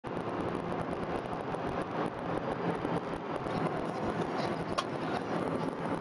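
Steady road and engine noise heard inside a moving car's cabin, with one brief click about five seconds in.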